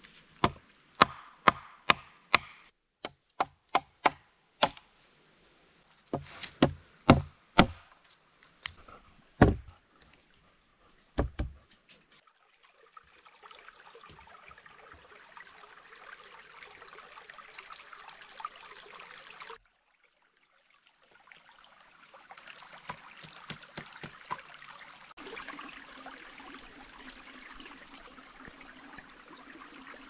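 Wood being struck with a tool: about eighteen sharp chopping blows over the first twelve seconds. Then a shallow stream trickling over stones, with a few soft wooden knocks partway through.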